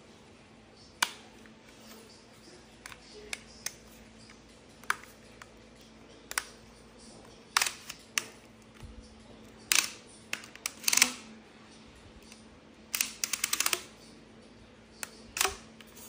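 Sharp plastic clicks and knocks as the stick vacuum's extension tube and its plastic connectors are handled and fitted together. Toward the end there is a quick rattle of about a dozen clicks in a second. A faint steady hum sits underneath.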